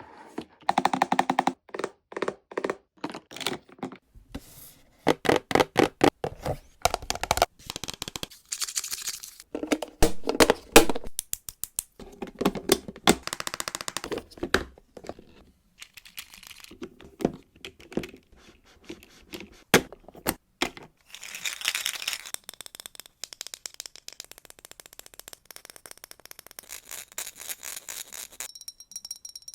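Small plastic toy kitchen pieces being handled: clusters of quick clicks, taps and light knocks, with a stretch of scraping and rustling about two-thirds of the way through.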